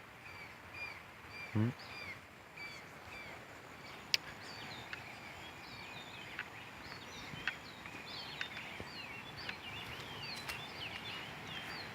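Birds calling with many short, repeated high chirps over a faint steady outdoor background, with a few sharp clicks scattered through.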